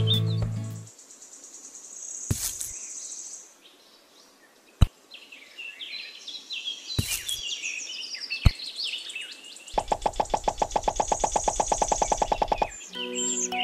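Small birds chirping and twittering in quick high phrases, with a few sharp clicks. Near the end, about three seconds of a rapid buzzing rattle, roughly a dozen pulses a second.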